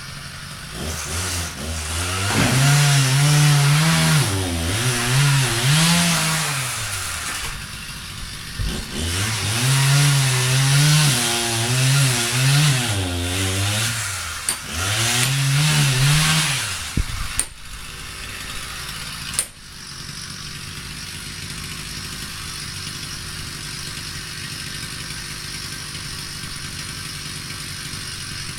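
Chainsaw engine revved up and down repeatedly in three spells, with a couple of sharp knocks just after, then settling to a steady idle.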